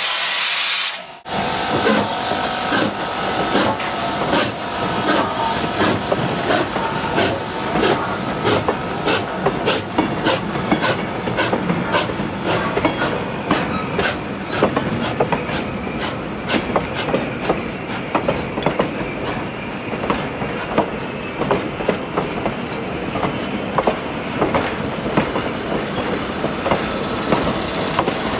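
Steam hissing from a locomotive for about a second. Then train cars roll slowly past with a steady rumble, their wheels clicking again and again over the rail joints.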